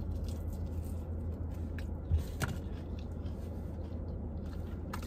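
A person biting and chewing a mouthful of fried food, with scattered small crunchy clicks and a couple of sharper ticks about two seconds in. A steady low hum runs underneath.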